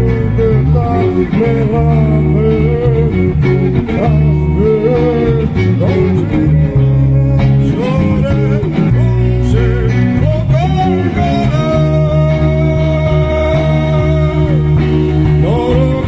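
A song: a voice singing a wavering melody over guitar and steady sustained bass notes.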